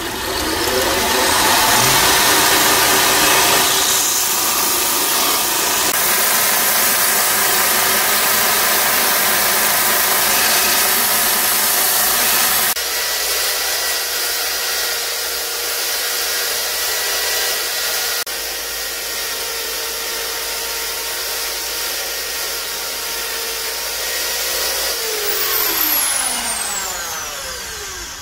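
Belt grinder running, grinding a steel knife blade against the belt. Then an electric motor spins a sanding wheel with a steady whine while a wooden knife handle is shaped against it. Near the end the whine falls in pitch as the motor is switched off and the wheel spins down.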